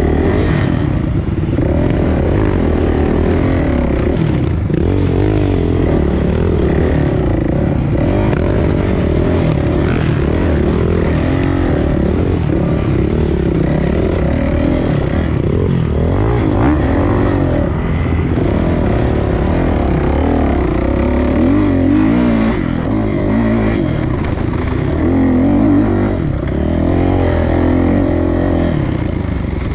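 Dirt bike engine running under load, its pitch rising and falling continuously as the throttle is worked through the ride.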